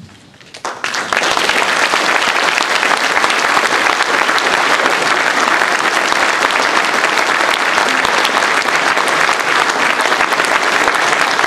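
Audience applauding. A few claps at first swell into full, steady applause about a second in.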